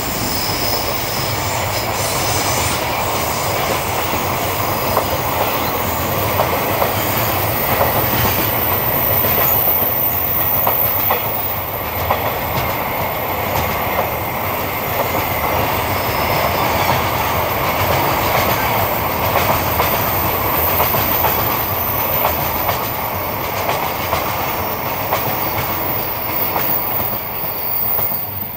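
Container flat wagons of a long freight train rolling past, their steel wheels running steadily over the rails, until the last wagon goes by near the end.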